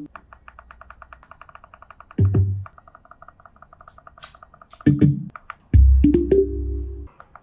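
Electronic music played on an LG xboom Bluetooth speaker in a sound test: a quick run of short plucked synth notes, about ten a second, broken by heavy bass hits, then a longer deep bass note near the end.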